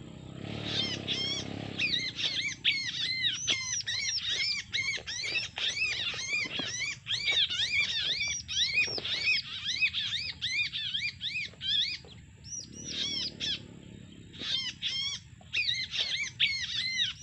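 Bar-winged prinias (ciblek) calling: rapid runs of sharp, arched chirps repeated several times a second, breaking off briefly twice before resuming.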